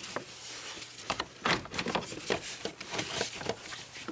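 A battery tray being worked into place in a car's engine bay: irregular clicks and knocks as it bumps and scrapes against the surrounding parts.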